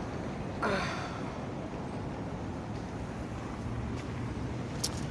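Steady rumble of street traffic, with a short high sound that falls steeply in pitch about half a second in, and a sharp click near the end.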